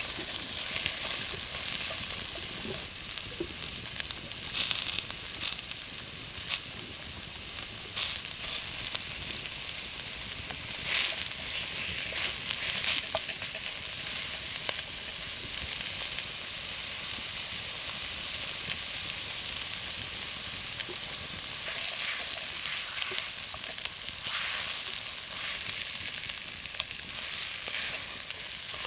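Onions and carrots sizzling steadily in hot fat in a cast-iron Dutch oven, with short crackles and scrapes as they are stirred now and then.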